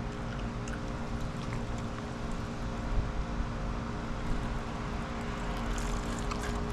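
Wind rumbling on the microphone over a steady mechanical hum made of several held tones.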